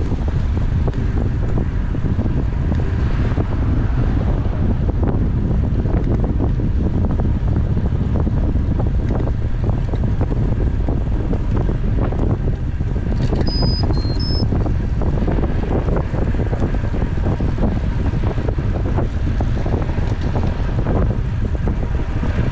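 Wind rushing and buffeting over the microphone of a camera riding along with a road bike at speed. About two-thirds of the way through, three short high beeps are heard.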